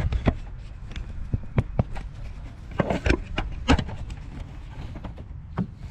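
Car engine idling with a steady low rumble, freshly fitted with new spark plugs, with irregular sharp clicks and knocks over it.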